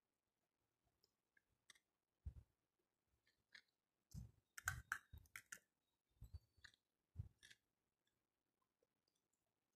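Quiet scattered clicks and soft knocks of a meal being eaten by hand from a plastic plate, bunched together about halfway through.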